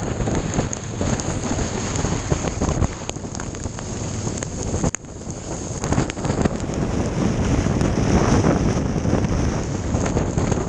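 Heavy rain mixed with ice pellets pelting down in strong wind, with the wind buffeting the microphone. The noise drops for a moment about five seconds in.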